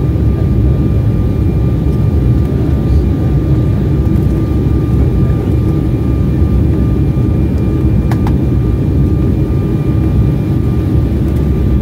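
Cabin noise inside an Embraer 175 twin-jet on approach: the steady low rumble of its GE CF34 turbofans and the airflow, with a thin steady whine over it. A brief click about eight seconds in.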